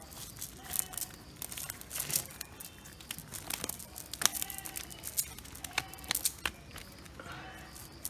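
Fish being picked out of a wet cast net on mud: an irregular string of crackling rustles and sharp wet clicks as the netting is pulled and the fish flap.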